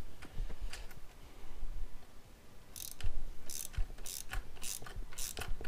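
Ratchet wrench clicking as it is worked back and forth, tightening a 13 mm bolt on a motorcycle's front axle. Faint clicks at first, then from about three seconds in quick runs of sharp clicks with each back-swing.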